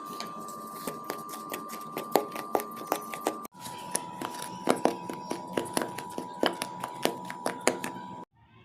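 Kitchen utensils clicking and scraping in quick, irregular strokes over a steady high hum; the hum drops slightly in pitch at a cut about halfway through.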